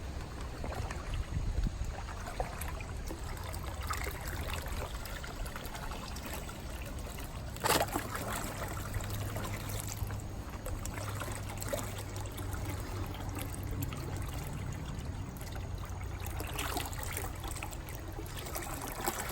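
Pond water trickling and splashing steadily, with one short, louder splash about eight seconds in.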